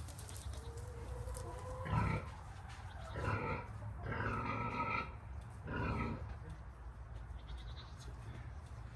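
Goats bleating: four calls a second or so apart, the third the longest.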